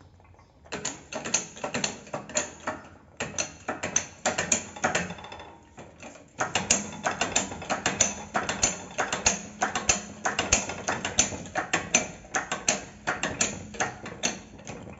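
Ratchet wrench clicking in quick repeated strokes, pausing briefly about three and six seconds in, as a new rubber suspension bushing is pressed into its arm.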